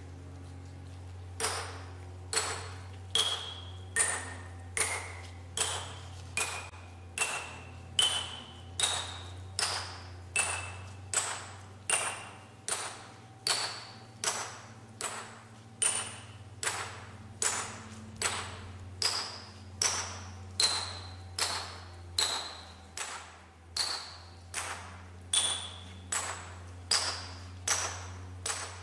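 Hand hammer striking the steel wedges (plug and feathers) set in a row of drilled holes in a granite block, one wedge after another, about once a second. Each blow gives a sharp metallic ping that rings at a different pitch from the last. Tightening the wedges in turn builds up the pressure that splits the stone.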